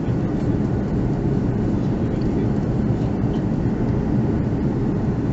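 Cabin noise of an Airbus A330-300 airliner in flight, heard from a window seat: a steady, low roar of engines and airflow.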